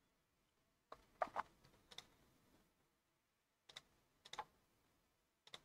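Near silence broken by a few faint, scattered computer clicks, with a quick pair about a second in and single ones later.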